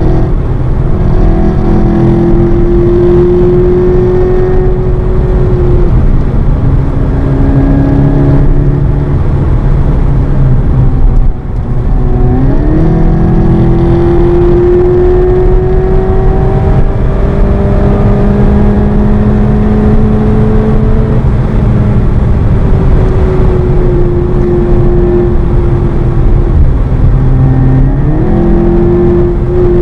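Seat Leon Cupra 280's turbocharged 2.0-litre four-cylinder engine under hard acceleration, heard from inside the cabin, its pitch climbing slowly through long pulls. About halfway through, and again near the end, the revs dip briefly and climb again, over steady road and wind noise.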